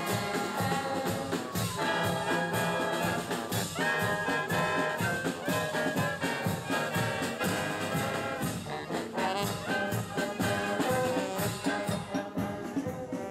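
Marching brass band playing a lively tune on the move: trumpets, trombones and a sousaphone over a steady percussion beat with cymbals.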